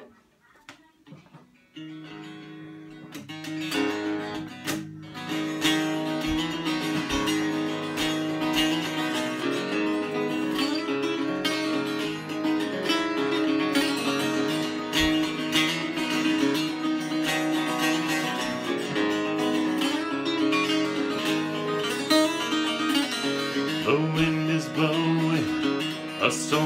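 Acoustic guitar playing a song's instrumental intro. After a quiet start, a chord rings out about two seconds in, and steady strummed chords follow.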